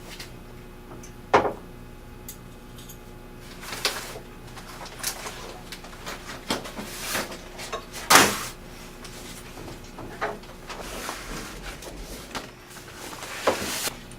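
Door and handling sounds: scattered knocks and thumps over a low room hum, with sharp strikes about a second in, about eight seconds in and near the end.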